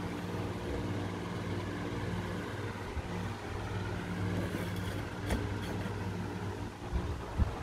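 A machine running with a steady hum, and a few knocks near the end.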